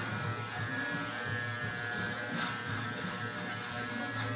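Handheld electric beard trimmer buzzing steadily as it shaves facial hair on the chin.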